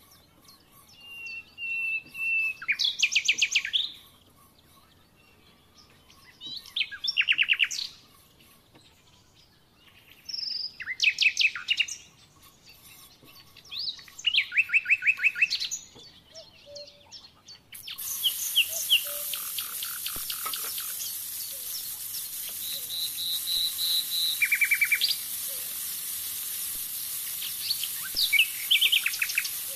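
A songbird singing short, fast trilled phrases, one about every three to four seconds. About two-thirds of the way through, a steady sizzle of food frying in oil in a pan starts beneath the song.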